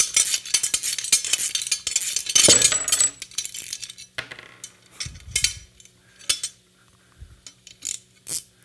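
Hand wrenches and a ratcheting wrench clinking and scraping against an aluminium plate and steel fasteners as a bolt is driven by hand into a hex standoff. A busy clatter of metal clicks for about the first three seconds, then scattered clicks.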